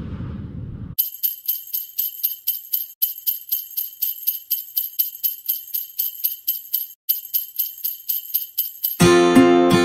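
A whoosh fading out, then jingle bells shaken in a steady rhythm about four times a second, with two brief breaks. Acoustic guitar music starts near the end.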